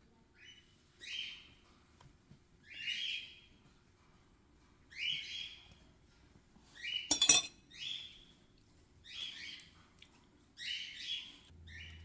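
A bird chirping over and over, a short call about every one and a half to two seconds. About seven seconds in, a single sharp click, the loudest sound here.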